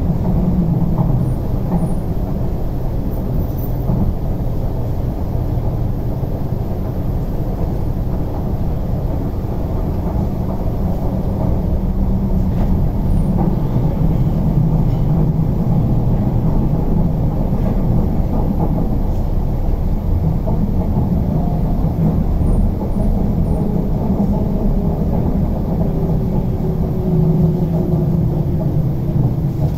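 Running noise heard inside an MTR East Rail Line R-train electric train moving at speed: a steady low rumble.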